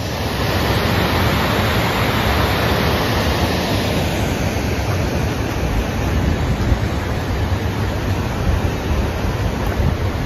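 Steady, loud rush of water from a mountain stream running over rocks.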